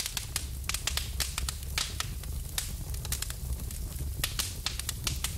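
Crackling fire: a dense run of sharp, irregular pops and crackles over a low steady rumble.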